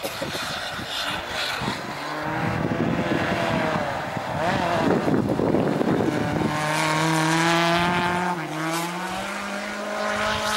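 Rally car engine running hard at high revs as the car approaches and passes on a snow stage, with the noise of tyres in snow under it. The engine note is held high, dips briefly about eight seconds in and then climbs again.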